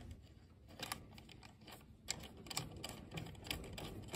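Faint, irregular clicks and ticks of a small screw and washer being fitted and turned by hand through a snare drum shell to fasten the butt plate.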